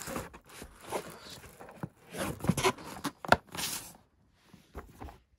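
Cardboard rubbing and scraping against cardboard as a snug, heavy boxed jigsaw puzzle is pulled up out of a packed cardboard box, in a run of scraping strokes with a sharp knock about three seconds in; the handling stops about four seconds in.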